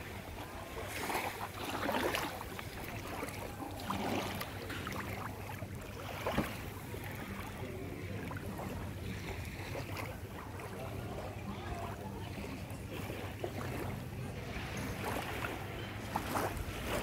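Small waves lapping and splashing gently on a sandy shoreline in shallow water, swelling irregularly every second or two, over a faint steady low hum.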